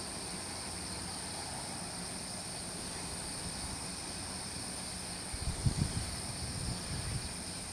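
Steady high-pitched insect chorus in a quiet dawn. About five and a half seconds in, a short run of low thumps and rumble comes in and dies away over the next two seconds.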